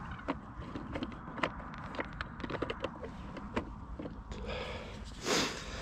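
Scattered small clicks and taps from handling the fishing gear while the pole is held out, over a low steady rumble, with a short breathy hiss about five seconds in.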